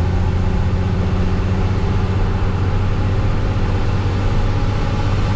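Heavy engine running steadily at an even speed, a low drone.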